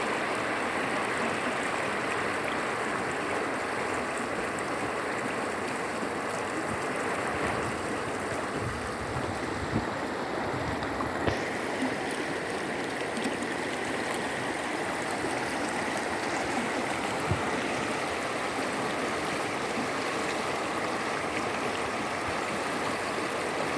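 Shallow stream of water flowing and babbling over a stony riverbed, steady throughout, with a few faint clicks.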